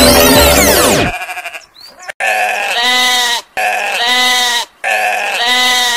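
Music ends in the first second with a falling, whistling swoop. From about two seconds in, an animal bleats three times, each bleat about a second long with short gaps between.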